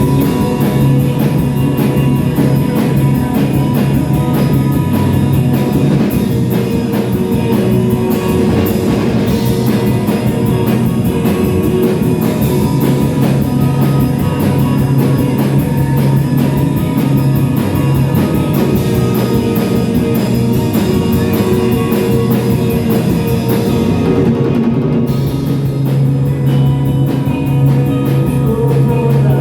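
Live rock band playing an instrumental stretch: guitars over a steady drum kit beat, with a sustained low bass note.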